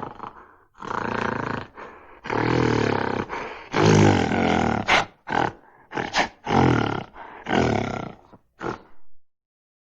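Gorilla grunts in a rapid series: three longer calls in the first half, the loudest about four seconds in, then several short sharp grunts, stopping about nine seconds in.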